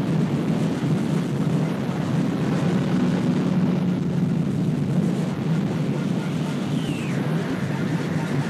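Harsh noise: a dense, steady wall of distorted, rumbling electronic noise, heaviest in the low end, with a brief falling high squeal about seven seconds in.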